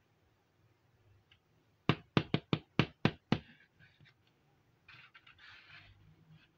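Hollow plastic toy house being handled and set down: a quick run of about seven sharp plastic clicks and knocks, followed a couple of seconds later by a soft scrape as it is pushed along the surface.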